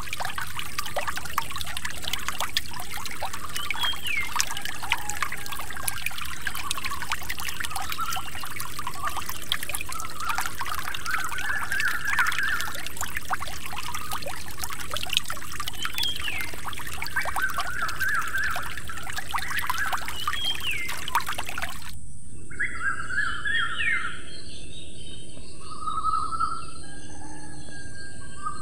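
Water pouring from a miniature pump's spout into a small model pond, a steady splashing trickle that cuts off suddenly about three quarters of the way through. Birds chirp throughout, with a few short rising calls.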